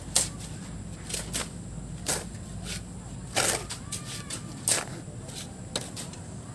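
Hand shovels scraping into a pile of river sand and tossing it into a dump truck bed: sharp scrapes at an uneven pace of roughly one a second, the one about three and a half seconds in the longest and loudest.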